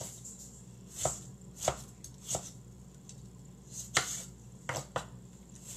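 Chef's knife slicing a tomato on a wooden cutting board: slow, unevenly spaced knocks of the blade meeting the board, about eight in all.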